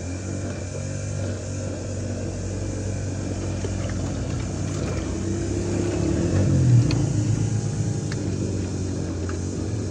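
A motor running steadily with a constant low hum, swelling briefly a little past the middle.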